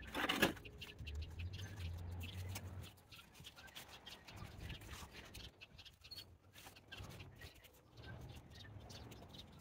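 Gloved hands brushing and patting loose potting soil in a plastic pot: soft scrapes and rustles, the loudest a short brush about half a second in. Birds chirp faintly in the background.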